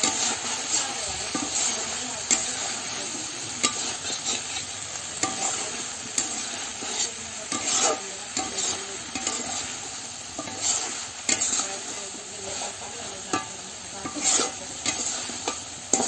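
Vegetables and chana dal sizzle steadily in a hot kadai while a spatula stirs them, scraping and knocking against the pan at irregular moments.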